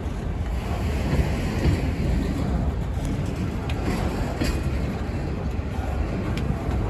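Freight train of autorack cars rolling past at close range: a steady rumble of steel wheels on the rails, with a few faint clicks.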